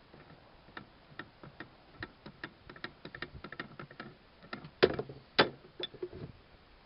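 Light metallic clicks and taps as vise parts are handled during reassembly, coming irregularly several times a second, then two louder knocks about five seconds in.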